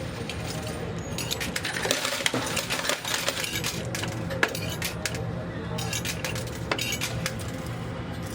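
Quarters clinking and clattering in a Silver Strike coin pusher arcade machine as coins drop onto the playfield and are shoved along, in a busy run of sharp clinks over a steady low hum.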